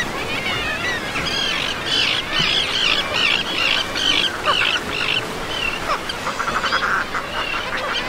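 Seabirds calling at a breeding colony: a string of loud, harsh, arching calls through the middle, then a quick rattling chatter near the end, over a steady background hiss.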